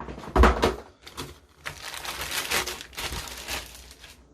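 Unboxing handling noise: a heavy knock about half a second in, then a couple of seconds of rustling and crinkling with small clicks as the keyboard and its packaging are handled.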